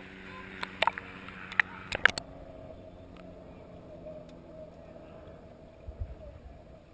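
Muffled underwater sound picked up by a camera held in the water: a steady hum with a few sharp clicks and knocks in the first two seconds, then quieter, with a couple of low knocks near the end.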